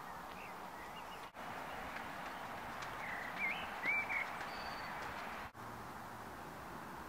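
Quiet outdoor ambience: a steady background hiss with a few short songbird chirps about three to four seconds in. The background breaks off for an instant twice, about a second in and again past five seconds.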